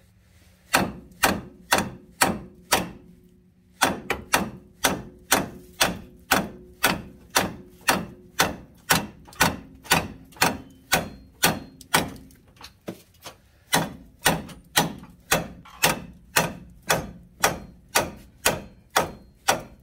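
Steady hammer blows on a 2006 Chevrolet Trailblazer's front steering knuckle, knocking the original, age-stuck upper ball joint free of its pinch-bolt clamp. Sharp strikes come at about two a second, with a short pause a few seconds in, and the metal rings faintly under the blows.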